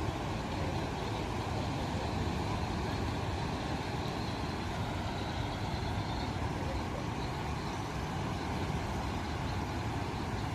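Steady rushing of high floodwater pouring through the fully opened gates of a river weir.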